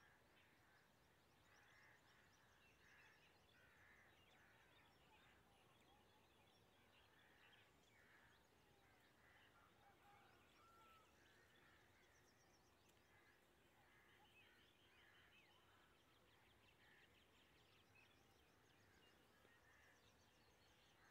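Very faint bird calls, short notes repeated about once a second, over a low steady background hiss.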